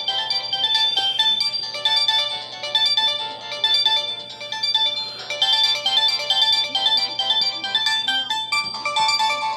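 Samsung GT-E2100 mobile phone ringtone playing: a fast melody of short electronic notes, breaking off briefly near the end before the notes carry on.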